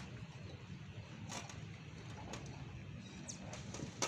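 Soft, brief rustles and scrapes of potting soil and roots as succulents are pressed into a terracotta pot by hand, a few times, over a steady low hum.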